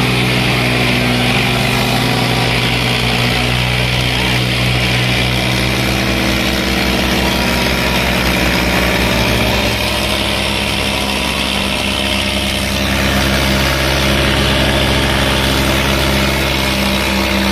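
Diesel engines of a Swaraj 855 XM and an old Eicher 5660 tractor running hard under full load in a tug-of-war, with a steady deep drone that shifts pitch about ten seconds in.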